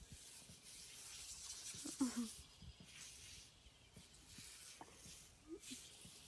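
Faint hiss of a lawn sprinkler's water spray, coming and going, with one short low sound about two seconds in.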